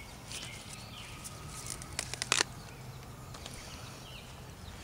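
Broadleaf plantain leaves rustling and snapping as they are picked by hand, with a short cluster of crisp snaps about two seconds in. Faint bird calls sound in the background over a low steady hum.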